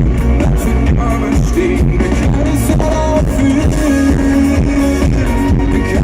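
Pop-rock band music, loud, with a steady beat.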